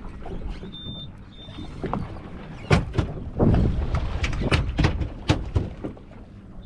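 Two short high-pitched electronic beeps from something on the boat, about a second in. From midway on, a series of loud knocks and thumps.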